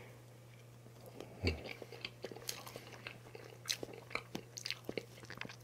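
Close-miked mouth chewing a soft chocolate layer cake: scattered small wet clicks and smacks, starting about a second and a half in, over a faint steady low hum.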